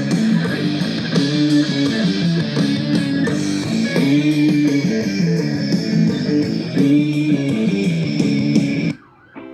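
Music led by guitar, playing a repeating phrase, that cuts off suddenly near the end; quieter, sparser plucked notes follow.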